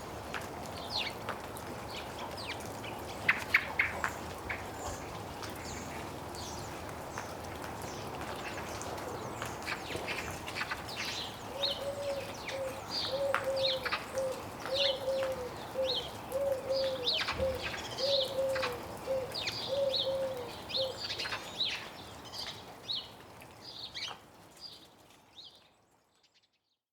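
Small garden birds chirping close to the microphone in a tree, many short high calls overlapping, with a lower call repeated about a dozen times through the middle. A few sharp clicks come about three seconds in, and the sound fades out near the end.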